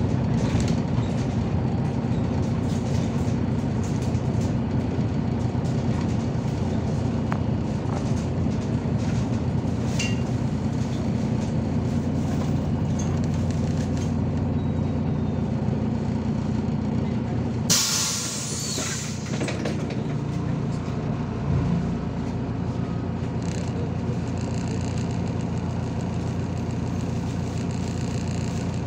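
MAZ-203 city bus heard from inside the cabin: steady diesel engine drone. About two-thirds of the way through comes a loud burst of compressed-air hiss from the bus's pneumatic system lasting a second or so, after which the engine sound eases a little.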